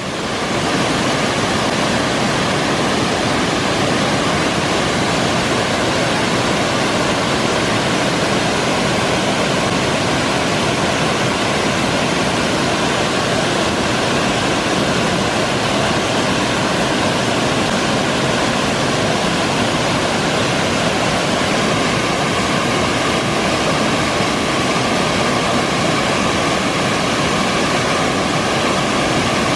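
Wide cascading waterfall, white water pouring over broad rock ledges, rushing loud and steady.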